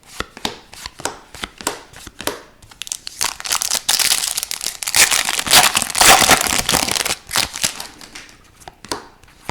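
Crinkling and tearing of a trading-card pack wrapper, with short clicks and rustles of cards being handled; the crinkling is densest and loudest in the middle.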